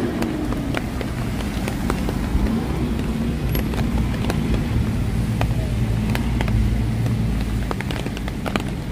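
Road traffic on a wet city street: a steady low rumble of passing cars that swells around the middle, with scattered sharp ticks of raindrops.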